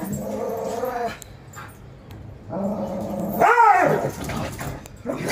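A dog whining in two drawn-out calls. The second, longer call climbs into a sharp high yelp and falls away.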